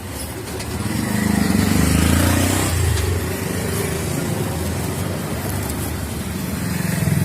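Motor vehicle engine running with road noise, swelling about a second in and then holding steady.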